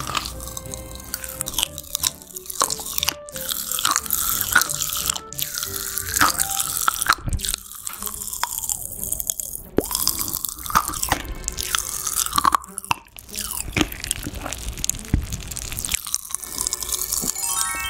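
Popping candy crackling in a mouth held close to a microphone: many quick, sharp little pops, over background music.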